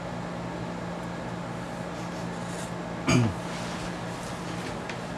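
Steady low room hum, broken about three seconds in by one short vocal sound from a person's throat that falls quickly in pitch.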